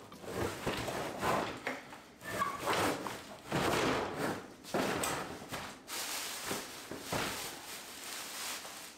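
An old built-in dishwasher being pulled out of its cabinet opening in a series of tugs: scraping and rattling of the unit and plastic rustling, in repeated noisy bursts about a second apart.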